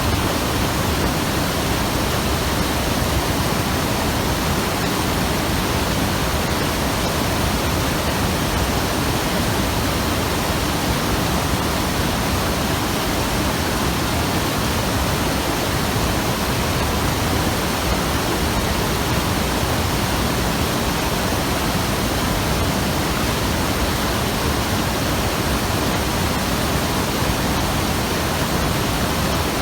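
Hayakawa river, a mountain river, rushing steadily over rocks: a loud, even wash of water noise.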